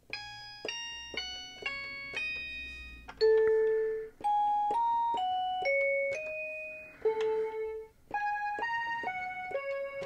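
Toy electronic keyboard (B. toys Meowsic cat piano) playing a simple melody in its piano voice: about eighteen single notes one after another, each struck and fading away, with two lower notes held longer.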